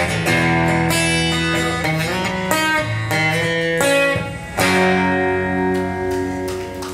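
Acoustic guitar strumming the closing chords of a song. A last chord is struck about four and a half seconds in and left to ring, fading near the end.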